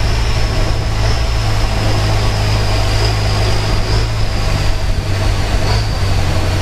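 Canal boat's engine running steadily: a low drone with a faint high whine above it.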